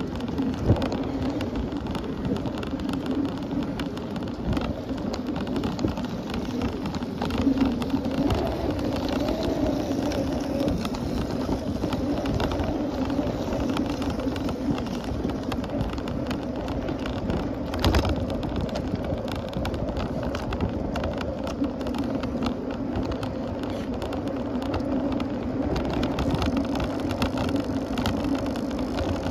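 Steady tyre and wind noise from a bicycle riding along a paved road, with a sharp knock about 18 seconds in.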